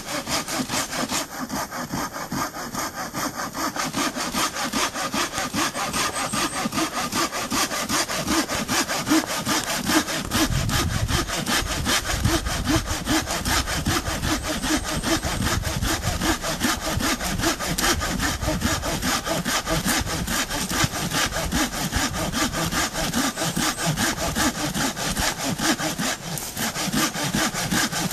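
Fiskars Xtract SW75 telescopic pruning saw cutting through a small tree trunk near its base, in quick, steady back-and-forth strokes that run on without a break.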